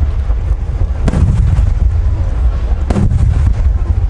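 Aerial fireworks shells bursting over a continuous low rumble of booms. Two sharp bangs stand out, about a second in and again near three seconds, each trailing off in an echo.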